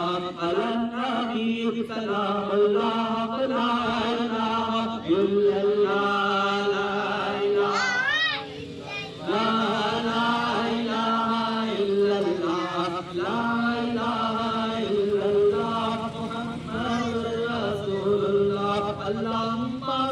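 A man's voice chanting a devotional Milad recitation into a microphone, amplified through a small loudspeaker, in long held, gliding notes. About eight seconds in there is a brief wavering high note.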